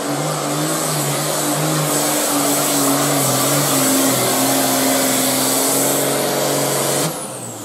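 John Deere 4430's turbocharged six-cylinder diesel running flat out under full load while pulling the weight sled, a steady, slightly wavering engine note with a thin high whine over it. About seven seconds in, the engine note drops away suddenly as the throttle comes off.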